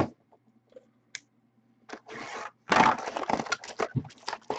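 A sealed trading-card box being opened by hand: a few light clicks, then from about two seconds in a dense crinkling, crackling tear of its wrapping and cardboard.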